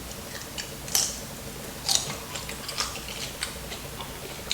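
A person chewing food close to the microphone: irregular crisp crunches and wet mouth clicks, the loudest about one and two seconds in.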